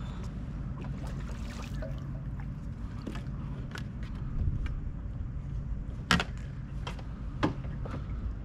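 Water lapping and sloshing against a plastic kayak hull, with scattered light clicks from gear on the kayak and two sharper knocks in the second half, a little over a second apart.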